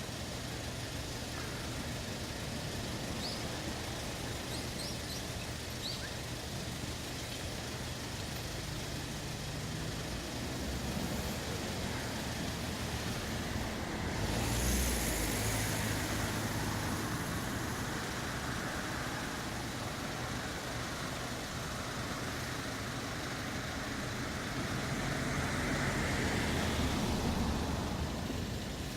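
Steady outdoor rushing noise with a low rumble underneath. It swells twice: sharply about halfway through, then more gradually near the end.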